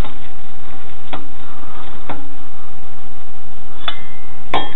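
Cross-shaped lug wrench clicking on the lug nuts of a steel wheel as they are tightened by hand: about five short, sharp metal clicks roughly a second apart, the loudest near the end, over a steady thin tone.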